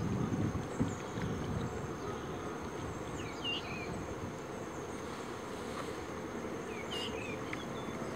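Steady outdoor wind and water noise over open floodwater, with a few short bird chirps about three and a half seconds in and again around seven seconds.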